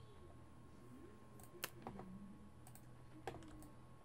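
A handful of sharp computer mouse clicks, spread over a couple of seconds, against near-silent room tone.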